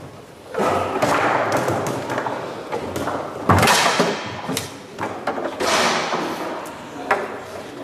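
Foosball rally on a Leonhart table: the ball is knocked about by the plastic men, with rods and bumpers thudding and clacking. The loudest hit comes about three and a half seconds in, and another sharp knock comes near the end.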